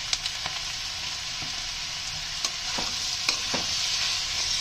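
Chopped vegetables stir-frying in oil in a stainless-steel kadai over high flame, sizzling steadily. A metal spatula scrapes and clicks against the pan a number of times as they are tossed.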